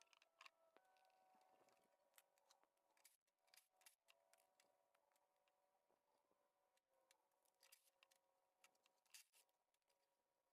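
Near silence: scattered faint clicks over a faint steady hum.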